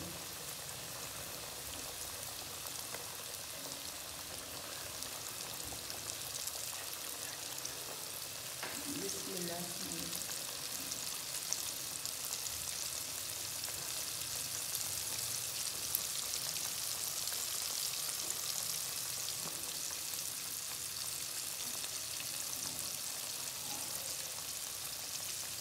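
Flour-coated chicken pieces deep-frying in hot ghee: a steady crackling sizzle that grows a little louder as more pieces go into the pot.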